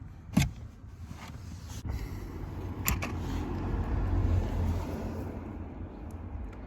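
Two sharp plastic clicks, the first and louder about half a second in and the second about three seconds in, as needle-nose pliers grip a mini blade fuse and pull it out of a car's fuse box. A steady low rumble runs underneath.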